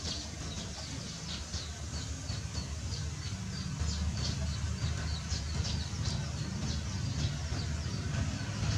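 Birds chirping in quick, short high notes over a steady low rumble, which grows louder about four seconds in.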